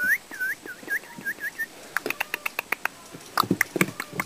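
A run of about six short, high, squeaky animal calls, fading one after another, followed about two seconds in by a quick flurry of sharp chirps and clicks that is loudest near the end.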